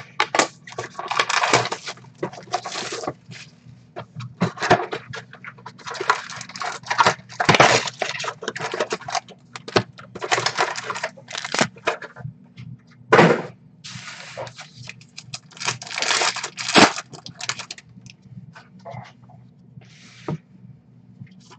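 Plastic shrink-wrap crinkling and tearing as a sealed box of 2019 Playoff NFL trading cards is unwrapped and its cardboard lid opened, with irregular crackles and rips throughout. A faint steady low hum runs underneath.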